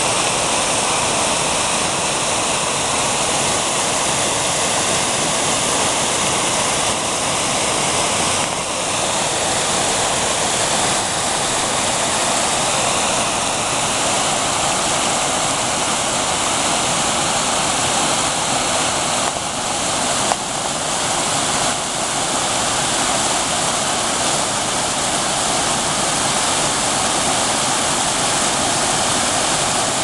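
Water gushing out of a culvert pipe and tumbling over rocks into a creek: a loud, steady rush of white water.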